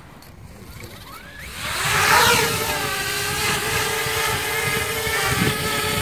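Parrot Bebop 2 quadcopter's four brushless motors spinning up about a second and a half in, with a sharply rising whine as it lifts off. It then holds a steady, loud propeller buzz of several even tones while hovering, over a low wind rumble on the microphone.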